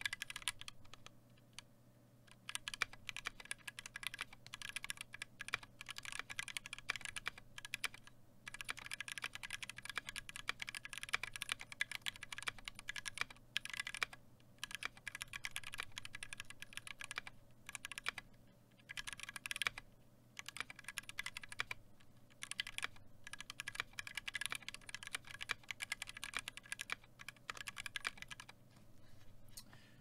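Fast typing on a KBDfans Tofu 60 custom mechanical keyboard with linear NovelKeys Silk Red switches on a brass plate, in runs of keystrokes broken by brief pauses. The board is tray-mounted, so each keystroke makes the case ping, which the builder puts down to the mounting points touching the bottom of the case.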